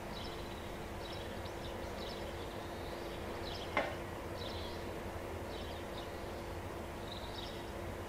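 Short, high chirps of small birds repeating every half second to a second over a steady outdoor hiss and a faint low hum, with one sharp click about four seconds in.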